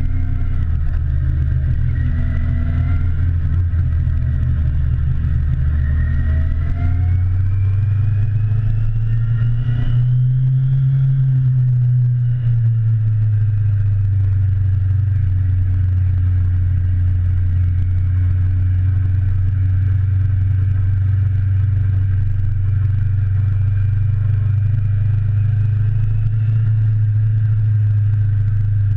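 Motorcycle engine heard close up from the bike's own handlebars, running continuously under way: the revs climb steadily for about the first ten seconds, ease off slightly, then hold steady for the rest.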